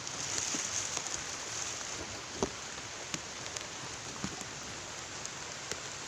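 Steady hiss of rain, with a few scattered taps of drops striking close by.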